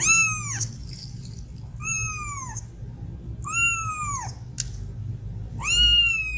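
Young kitten meowing four times, roughly every one and a half to two seconds: high, thin calls that each rise briefly and then slide down in pitch, the last one the longest.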